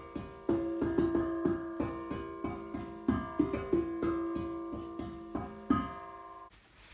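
A homemade tank drum, welded from two propane gas bottle tops, is struck on its cut tongues, giving a run of ringing metal notes a few times a second that overlap as they ring on, with one note coming back most often. The playing stops about six and a half seconds in. The drum is not yet finely tuned.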